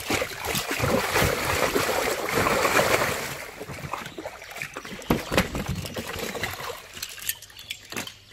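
Water splashing and sloshing for the first three seconds or so as a large fish is hauled in a cast net, then scattered knocks and thumps as it flaps and is handled on the wooden boat deck.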